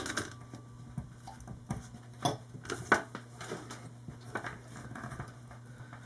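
Fingers handling a CAT5e keystone jack and its trimmed wire ends: scattered small plastic clicks and ticks, with two sharper ones about two and three seconds in. A faint steady low hum runs underneath.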